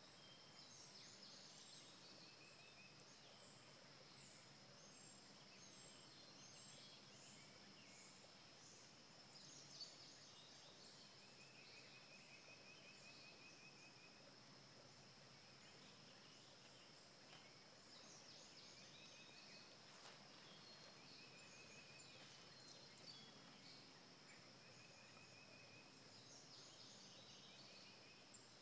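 Faint outdoor ambience: scattered bird chirps and short, rapid trills over a steady high-pitched insect buzz.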